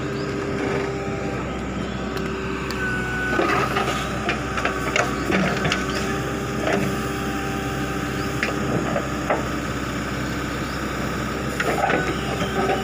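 JCB 3DX backhoe loader's diesel engine running steadily with a constant whine, while a handful of sharp metallic clanks and knocks come from the working backhoe, spread from about three seconds in to near the end.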